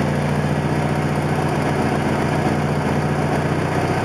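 18 hp Briggs & Stratton opposed-twin engine idling steadily, still cold just after starting.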